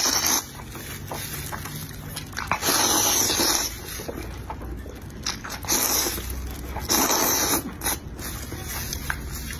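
Close-miked slurping of a mouthful of spicy instant turkey noodles, several long, loud slurps with wet chewing between.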